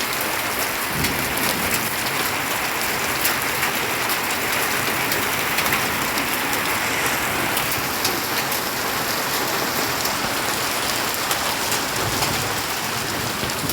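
Heavy rain and hail coming down hard: a steady hiss of rain with many small sharp ticks of hailstones striking.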